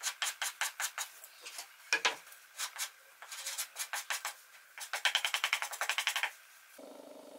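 Hand sanding the edge of a hornbeam cutting board with a sanding block: rhythmic back-and-forth rasping strokes, about five a second, quickening about five seconds in and then stopping. A steady hum starts just before the end.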